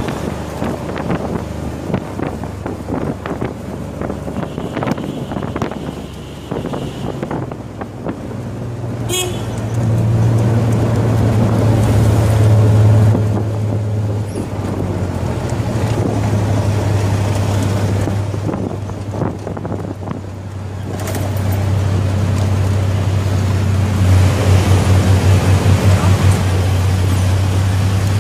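Riding in a tuk tuk through city traffic: the three-wheeler's small engine runs with a steady low drone, with wind buffeting the phone's microphone and traffic around. A horn toots for a couple of seconds about five seconds in. The engine note grows louder about ten seconds in and chugs in regular pulses near the end.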